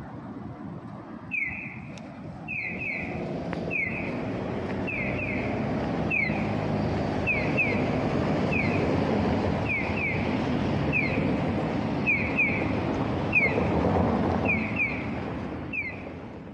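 Electronic bird-chirp guide tone of a pedestrian crossing signal, short falling chirps repeating about once a second, some single and some in quick pairs. Under it, steady street traffic.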